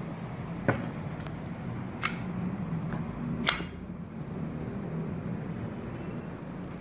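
Three short, sharp clicks a second or so apart, the last the sharpest, from hard plastic and metal parts of a Glock 17 CO2 air pistol being handled on a table, over a low steady room hum.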